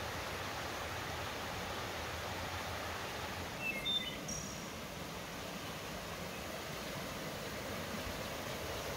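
Steady rush of a small rocky creek cascading down a series of little waterfalls, with a few short high chirps about four seconds in.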